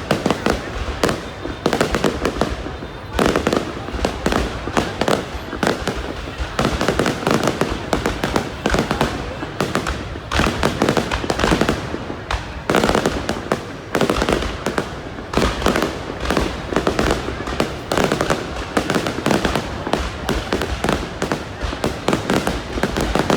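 Fireworks display: a dense, unbroken barrage of aerial shell bursts and crackling bangs, many per second.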